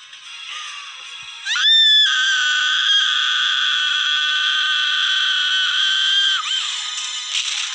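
A woman's long, high-pitched scream of terror: it rises sharply about a second and a half in, holds steady for about five seconds, then breaks and falls away near the end, over horror film music.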